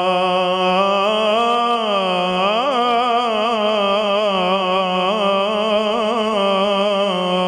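A man's voice chanting Arabic devotional recitation, holding one long vowel. The tone is steady at first, then wavers with quick ornamental trills from about two seconds in, and settles back onto a steady tone near the end.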